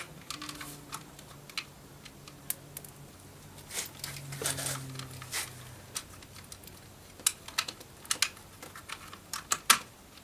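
Irregular light clicks and taps of hard plastic parts being handled and fitted, as the power window switch is secured to the Toyota Camry's interior door panel. A cluster of sharper clicks comes near the end.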